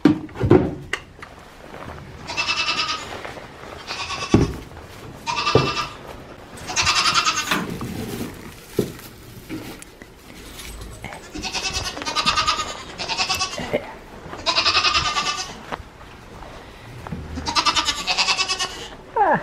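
Goats bleating again and again, about nine calls of roughly a second each, with several sharp knocks and thumps between them, the loudest two right at the start.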